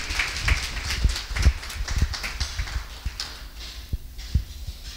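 An audience applauding, with many irregular hand claps and a few low thumps mixed in.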